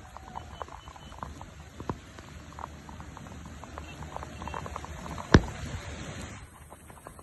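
Raindrops pattering as many small irregular ticks in heavy monsoon rain, with one sharper, louder tap about five seconds in.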